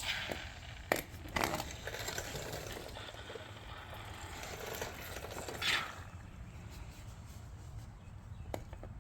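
Fix-A-Flat aerosol can discharging sealant through its hose into the tire valve, with short bursts of hissing and sputtering. There are a few sharp clicks as the can and nozzle are handled.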